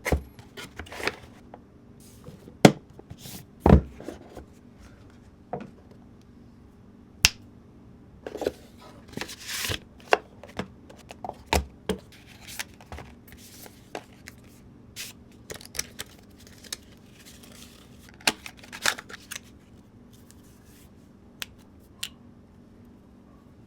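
Smart-ring box and packaging being opened and handled: scattered clicks, taps and knocks of cardboard and plastic parts, with a short rustle about nine seconds in. The handling thins out to a few isolated clicks in the last few seconds.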